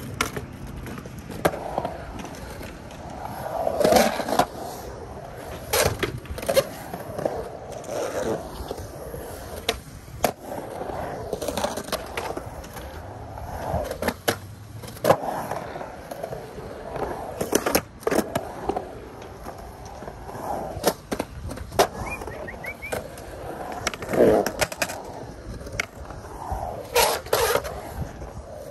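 Skateboard wheels rolling and carving around a concrete pool bowl, with sharp clacks every few seconds as trucks and boards strike the metal-edged coping and the concrete.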